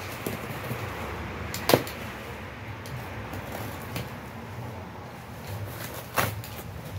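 A cardboard box is cut and pried open with a box cutter: the blade scrapes through the cardboard, with a sharp snap of cardboard about two seconds in and another near the end.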